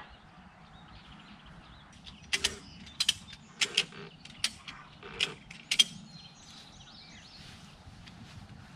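Ratchet strap being tightened by hand around the folded over-the-tire track on a skid loader tire: a run of about six sharp ratcheting clicks, roughly one every two-thirds of a second, between about two and six seconds in.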